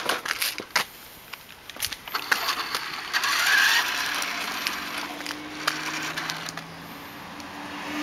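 Toy remote-control truck on a concrete sidewalk: a few knocks and clicks as it is handled and set down, then its small electric motor and gears whirring, settling into a steady hum from about four seconds in.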